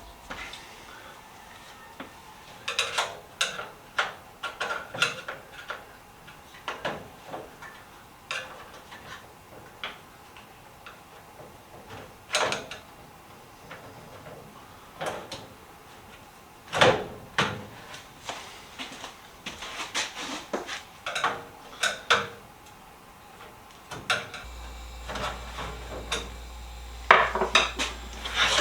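Steel drawer and its slides in a 1986 Proto rolling tool chest clanking, clinking and scraping as the drawer is worked loose and pulled out, in irregular knocks. Near the end a steady low hum comes in.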